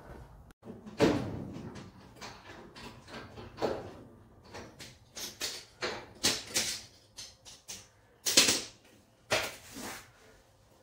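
Sheet-metal shed door being swung and worked on its hinges: a run of irregular clanks and rattles, the loudest about a second in and again around eight seconds. The door is being tried after its hinge holes in the jamb were reamed and notched to fix the misalignment that kept it from closing.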